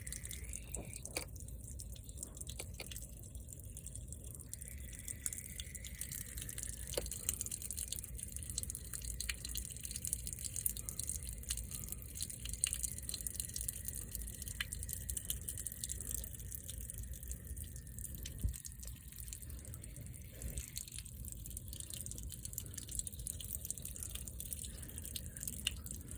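Water dripping and trickling out of a 2019 Toyota RAV4 rear door as it drains: rainwater that has collected inside the door because it is not draining on its own.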